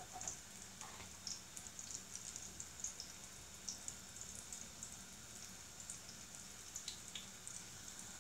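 Potato zrazy frying in sunflower oil in a skillet: faint sizzling with many small, irregular pops and crackles of the hot oil.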